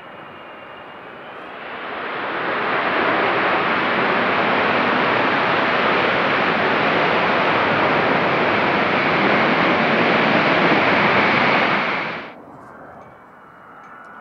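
Royal Australian Air Force C-17A Globemaster III's four turbofan engines: a high whine at first, then a loud rushing jet roar that swells about two seconds in and holds steady. The roar cuts off suddenly near the end, leaving a faint high whine of a distant jet.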